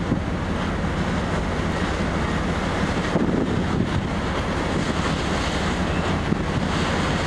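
Wind buffeting the microphone over the rush of churned seawater along a moving ship's hull, with a steady low engine drone underneath.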